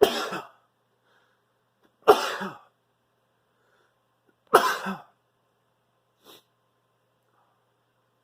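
A man sneezing three times in a row, about two seconds apart, each a sharp burst that trails off. A faint short sound follows about six seconds in.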